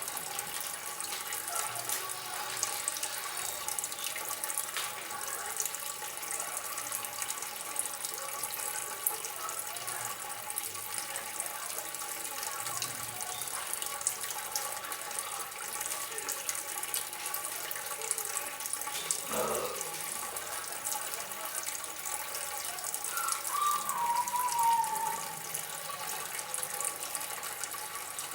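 Water trickling and splashing steadily, a continuous fine patter of drops. A short falling whistle-like note sounds near the end.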